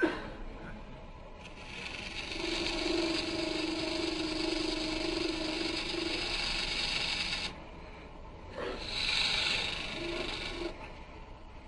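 A turning tool cutting green, wet wood on a spinning Jet Mini lathe, shaving the tenon end of a goblet blank: a long steady cut of about six seconds starting a second or so in, then a shorter cut near the end. A short sharp knock comes at the very start.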